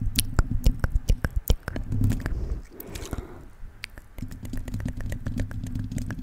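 Wet mouth sounds made close to the microphone: rapid tongue and lip clicks and smacks, with a brief lull about three seconds in.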